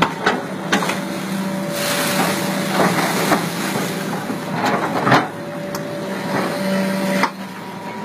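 Excavator engine running with a steady hum over churning, splashing water, with several sharp knocks or splashes.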